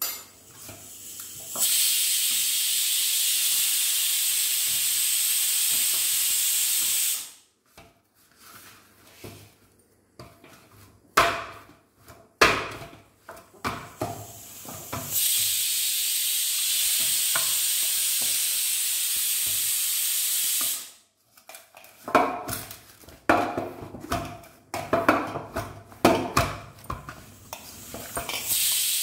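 Roti dough being kneaded by hand in a large stainless-steel plate, with irregular knocks and slaps of the dough and hands against the metal. Twice a steady hiss comes in abruptly and holds for about five seconds, then cuts off, and it starts again near the end.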